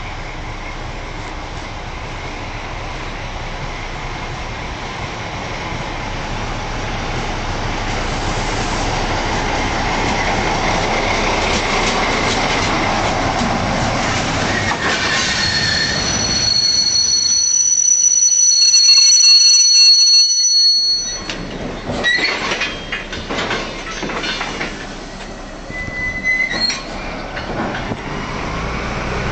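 Track-construction train hauled by a Wiebe diesel locomotive rolling past, its rumble growing louder over about twenty seconds. Past the middle the wheels squeal with a steady high screech for several seconds, followed by shorter squeals and clatter as the noise falls back.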